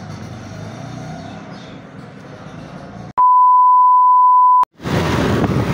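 A steady 1 kHz test-tone beep, the tone that accompanies TV colour bars. It cuts in sharply about three seconds in and stops abruptly after about a second and a half, with quieter background noise before it and louder noise returning just after.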